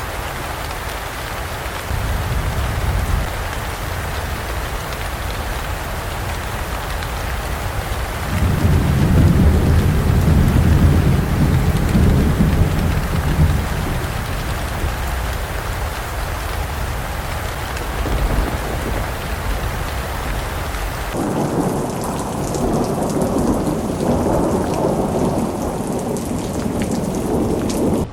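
Heavy rain falling steadily with long, low rolls of thunder; the loudest roll comes about a third of the way in. Near the last quarter the rain turns duller, with the hiss fading and the rumble carrying on.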